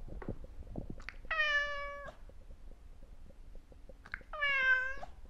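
Domestic cat meowing twice, about three seconds apart, each meow under a second long, over a low rumble.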